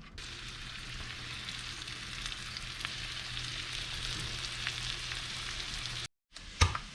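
Flour-dredged red grouper pieces sizzling steadily in a hot frying pan, with a steady low hum underneath. The sizzle cuts off about six seconds in, and a sharp clack follows near the end.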